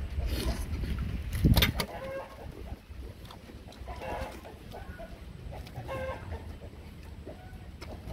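Chickens clucking in short calls every couple of seconds, over close eating noise as cooked snake meat is bitten and torn apart; a loud burst of this noise about a second and a half in is the loudest moment.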